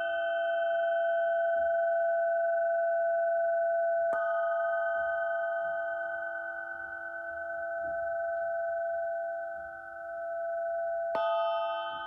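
An 8-inch crystal singing pyramid ringing with a steady chord of pure tones, struck with a padded mallet about four seconds in and again near the end, each strike renewing the ring. Between strikes the ringing slowly wavers in loudness as it decays.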